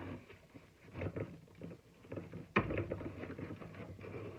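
Plastic shop vacuum housing being pried at while stuck: small scraping and creaking handling noises, with one sharp knock about two and a half seconds in.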